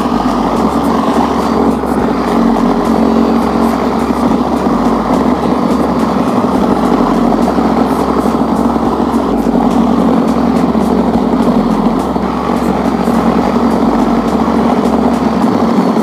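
Electric power shovel running steadily under load, its motor and spinning rotor churning through wet slush and throwing it off the pavement, with a faint high whine over the drone.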